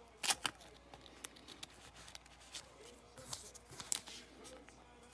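Glossy trading cards sliding and snapping against one another as a stack is shuffled through by hand, with a few short, sharp snaps among a light rustle.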